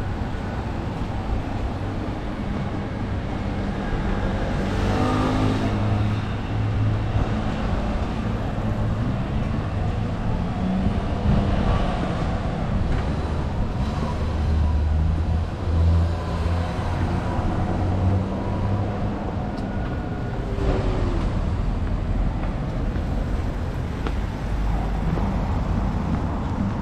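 City street traffic: car engines and tyres in a steady low rumble, with cars passing by now and then.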